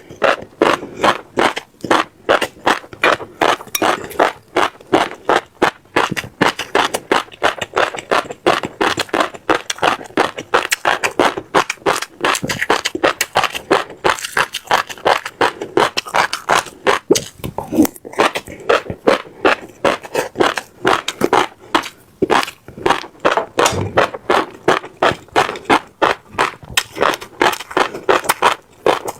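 Close-miked crunchy chewing of seeds, the seeds cracking between the teeth in rapid crisp crunches about four times a second, with a brief pause about halfway through.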